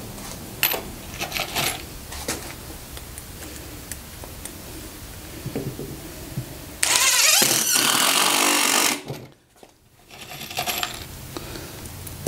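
A cordless driver runs for about two seconds, driving a Phillips screw into the wooden frame, with small knocks and clicks of handling the wood and screws before and after.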